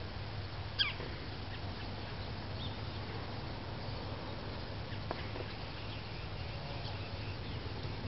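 Red-bellied woodpecker giving one short, falling call about a second in, with a few fainter calls later, over a steady low background rumble.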